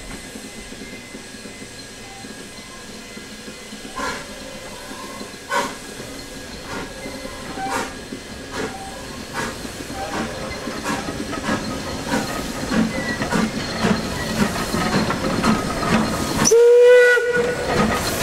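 Isle of Man Railway steam locomotive Kissack, a Beyer Peacock 2-4-0 tank engine, hissing steam and working its train slowly past. Its exhaust beats and occasional sharp clanks grow louder as it draws near. About three-quarters of the way through it gives one short, loud blast on its whistle.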